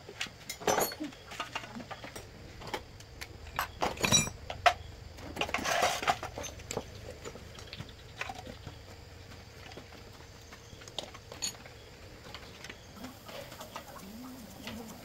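Scattered sharp knocks and metallic clinks of hand tools and parts being handled on metal, irregular and loudest about four and six seconds in.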